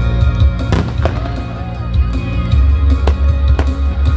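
Fireworks bursting, a few sharp bangs, over loud music with a deep steady bass.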